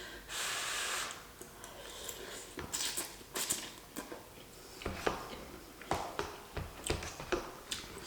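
Close-miked eating of instant beef ramen noodles: a short noisy slurp near the start, then a run of small wet chewing and mouth clicks at uneven intervals.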